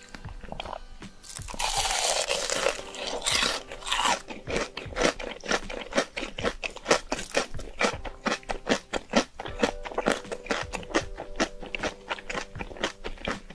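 Close-miked eating of instant noodles with shrimp: a longer rushing noise a second or so in, then rapid crunchy chewing, about four or five bites a second.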